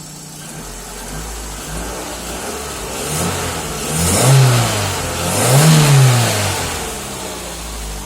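Hyundai Elantra HD 16-valve four-cylinder engine idling while still warming up, revved twice, rising and falling about four and six seconds in, then settling back to idle. The engine is not yet fully warm, the state in which its hydraulic lifters tick.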